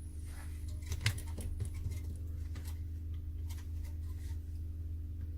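Steady low hum with a scattering of light clicks and taps from handling a smartphone and its small tools during reassembly.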